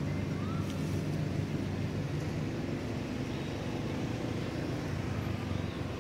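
Steady low drone of a running motor-vehicle engine.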